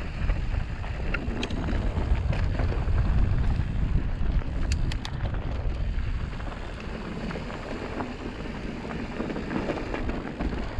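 Wind buffeting the camera microphone over the rolling rumble of mountain bike tyres on a dusty, loose dirt trail, with scattered sharp clicks and rattles, a cluster of them about five seconds in.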